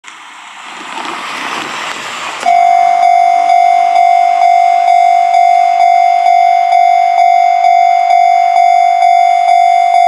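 Japanese level-crossing electronic warning bell starting up suddenly about two and a half seconds in, after a rising rush of noise. It rings one steady pitched tone in an even rhythm of about two strokes a second, the crossing's warning that a train is approaching.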